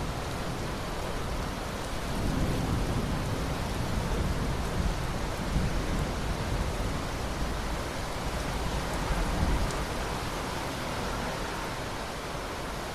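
Steady rain hissing, with a low rolling rumble of thunder that swells about two seconds in and dies away a few seconds before the end.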